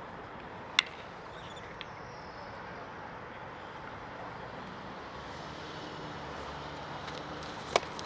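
Steady outdoor background noise, broken by two sharp cracks during baseball fielding drills: one about a second in with a brief metallic ring, and another just before the end.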